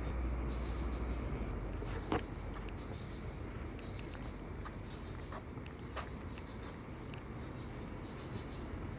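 Crickets and other night insects chirping in a steady high drone with pulsing trills. A few sharp clicks, the loudest about two seconds in, and another near six seconds.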